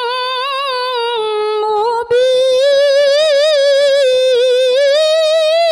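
A woman's solo voice in melodic Quran recitation (tilawah), drawing out one long ornamented line whose pitch wavers and turns. About two seconds in it breaks off for an instant and comes back louder, still held on the same line.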